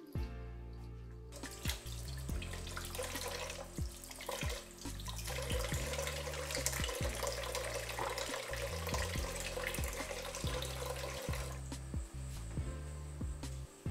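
Kitchen tap running water into a sink. The water starts about a second in and stops near the end, with background music underneath throughout.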